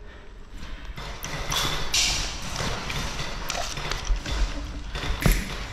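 Footsteps and rustling of gear as an airsoft player moves, with a low rumble of handling noise on the camera and a sharp click near the end.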